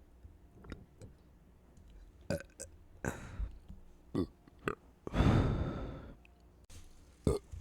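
A person burping several times from a full, gassy stomach: a few short, sharp burps and mouth clicks, then one long, loud burp about five seconds in.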